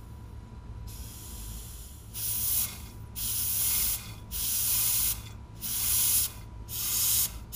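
Compressed air hissing in bursts as it is squirted into a hole punched in the side of a gear oil bottle, pressurising it to force the oil down a hose into the transmission fill hole. A faint hiss starts about a second in, followed by five loud bursts of about a second each with short pauses between.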